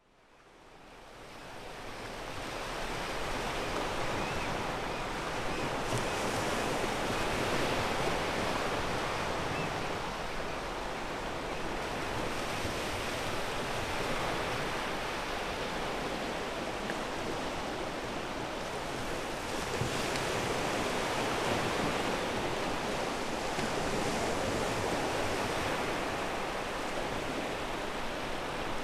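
Ocean waves breaking and washing over a pebble beach, fading in over the first few seconds, then a steady wash that swells and eases as each wave comes in.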